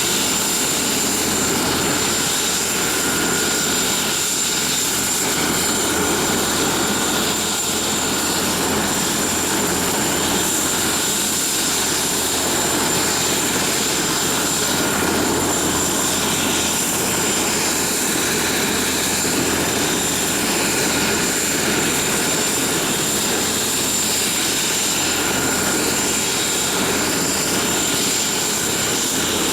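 Bell 412 helicopter running steadily with its twin turboshaft engines: a constant high turbine whine over the rushing engine and rotor noise, with no change in pitch or level.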